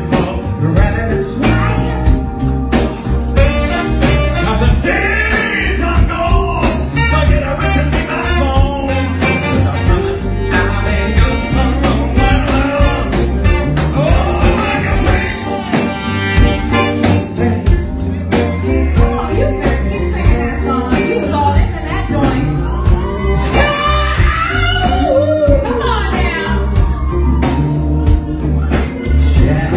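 A live band playing a song: a male lead singer over drums and electric guitars, with a steady beat.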